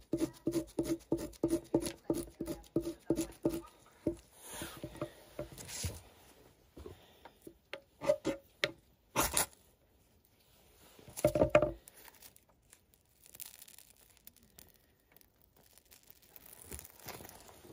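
Birch bark being scraped with a knife on a weathered wooden bench, in rhythmic strokes about four a second for the first few seconds, then irregular scraping. Two loud rasping strikes of a ferrocerium rod near the middle throw sparks to light the bark.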